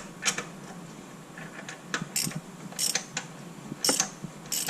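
Hand ratchet wrench worked in short strokes, with a brief burst of clicking every half second to a second, turning the installer tool that presses the crankshaft pulley (harmonic balancer) onto a 6.0 L LS V8's crank.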